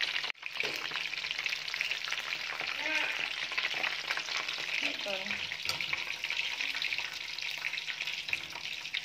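Battered chicken strips deep-frying in hot oil, a steady dense crackling sizzle. The sound drops out for a split second near the start.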